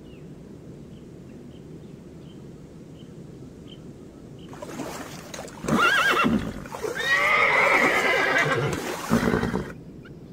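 Zebras calling with loud, whinnying brays over water noise, starting about four and a half seconds in and cutting off suddenly near the end.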